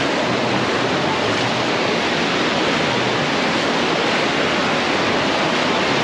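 Shallow ocean surf: a steady rush of waves washing and foaming around the shallows.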